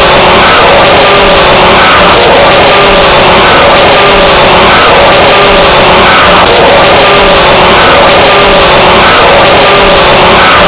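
A mouse squeak sound effect distorted and clipped to maximum loudness: a harsh, constant wall of noise with faint repeating squeak-like tones under it.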